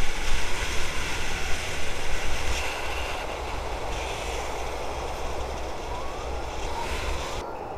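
Wind rushing over the camera and a Honda CBR sport bike's engine running at speed on an open road, a steady rush with a low rumble. The high part of the rush drops away suddenly near the end.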